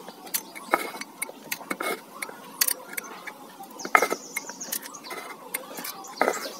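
Screwdriver tip prying and scraping around the rim of a small metal paint tin's lid: irregular metal clicks and scrapes, with a few sharper clicks about a second in, about four seconds in and near the end.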